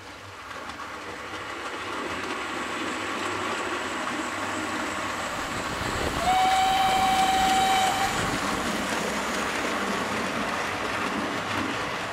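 Steam train running, its noise building up from the start, with one steady whistle blast lasting about two seconds some six seconds in.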